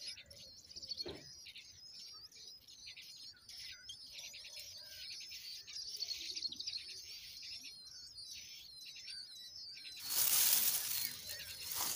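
Nestlings begging with rapid, high-pitched, overlapping chirps. About ten seconds in, a loud burst of noise starts and covers them.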